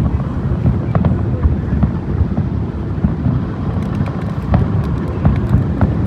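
Aerial fireworks shells bursting over water, heard as a dense, uneven low rumble of booms. Scattered sharp pops and crackles come through, several of them about four to five seconds in.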